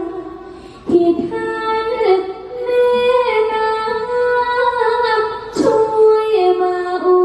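A girl singing a slow, drawn-out Thai melody with long held, wavering notes over musical accompaniment. Sharp percussion strikes come about a second in and again past the five-second mark.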